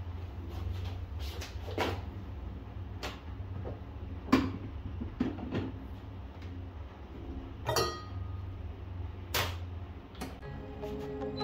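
Handling knocks and clicks at an espresso machine as the portafilter is fitted and a stainless steel pitcher is set under the spout. The loudest knock comes about four seconds in, and a ringing metal clink comes about two-thirds of the way through, all over a low steady hum.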